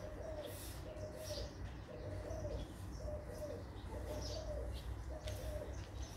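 A dove cooing in a run of short, evenly spaced notes, with faint high bird chirps now and then and a low steady rumble underneath.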